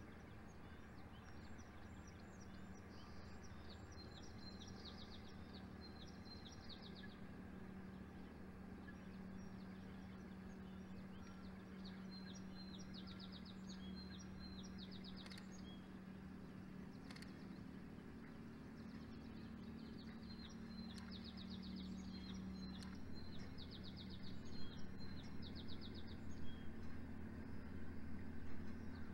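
A small songbird singing the same short song three times, each a run of clear notes ending in a quick trill. A steady low hum runs underneath, and a low rumble grows louder over the last few seconds.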